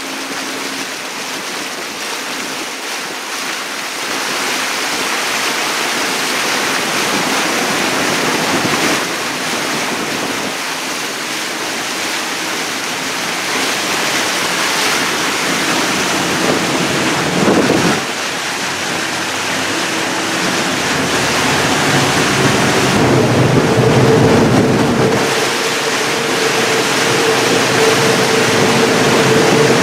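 Wind rushing over the microphone and water swishing past the hull of a moving catamaran cruise boat. A steady drone from its twin turbocharged Detroit Diesel engines runs underneath and becomes more prominent in the last several seconds.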